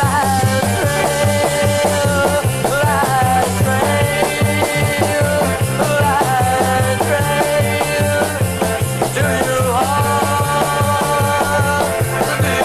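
A 1969 single playing: a band passage with a steady bass and drum rhythm under a held lead melody that slides between notes.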